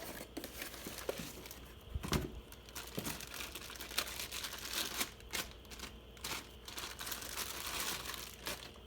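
Plastic or cardboard packaging crinkling and tearing as new coilover springs are unwrapped, with irregular rustling and scattered sharp clicks and knocks.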